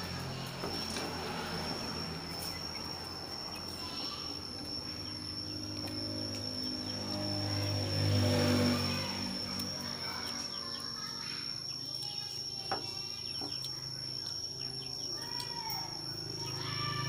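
Background ambience: a steady high-pitched insect-like trill over a low rumble, with a few faint chirps and a single click about three quarters of the way through.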